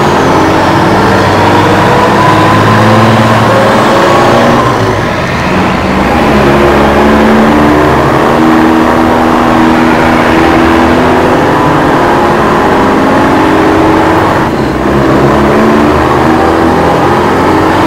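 Loud vehicle engine sound, revving with stepwise changes in pitch, briefly dropping away about five seconds in and again near the end.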